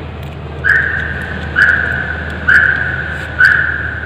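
A high, flat tone repeating about once a second, four times, each note starting sharply and trailing off.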